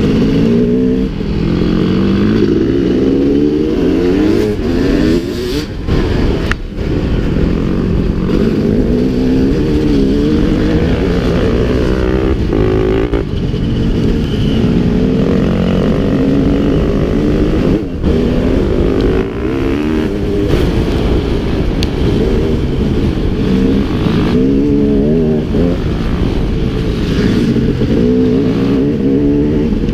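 Dirt bike engine running under way on a trail, close to the microphone, its pitch repeatedly rising and falling with the throttle, with brief drops in level a few times.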